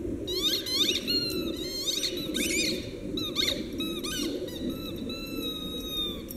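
Dog chewing a blue squeaky football toy, setting off a quick, irregular run of squeaks that slide in pitch, with a longer, steadier squeak near the end.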